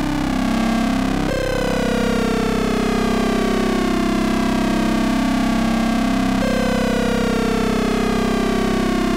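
Ring-modulated drone from a Eurorack modular synthesizer's oscillators: a steady, buzzy chord of many tones. A group of tones jumps up about a second in and again about six seconds in, each time sliding slowly back down.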